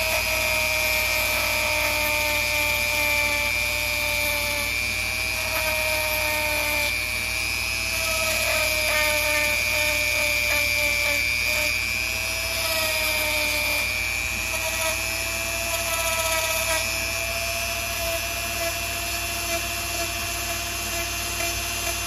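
Small power grinding tool running steadily as it grinds away a blob of solder on the side of a soldered typewriter type slug; its whine sags and recovers several times as it bites into the metal.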